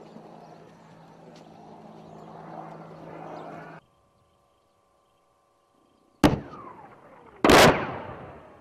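Two loud blasts of explosions or heavy weapons fire a little over a second apart, the first short and sharp, the second louder and longer with a rolling tail that dies away over about a second. Before them a steady low outdoor rumble cuts off suddenly, leaving near silence.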